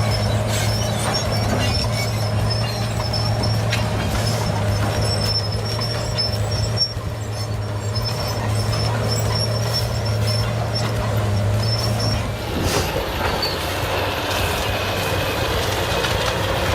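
Heavy machinery running, with a steady low hum under a dense rattling, grinding noise and faint high squeals; the hum drops away about three quarters of the way through while the noise carries on.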